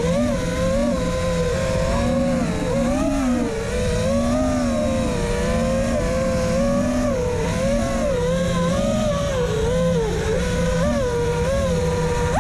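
FPV quadcopter's brushless motors and propellers whining, the pitch wavering up and down with the throttle and dipping briefly about ten seconds in, over a rough rush of air.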